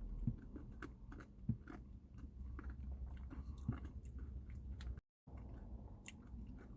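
Faint chewing of a soft-serve Blizzard with Reese's Pieces candy and cookie dough, with scattered small clicks and soft thuds. The sound drops out completely for a moment about five seconds in.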